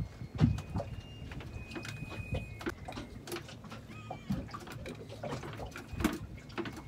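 Irregular knocks, taps and clatter in a small fishing boat as freshly caught mackerel and fishing tackle are handled, with a few brief high squeaks over a low steady rumble.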